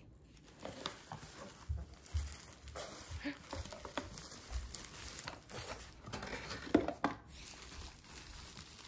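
Plastic wrapping crinkling and rustling in irregular handfuls as a wrapped toy is drawn out of a cardboard box, with scattered light knocks of the box.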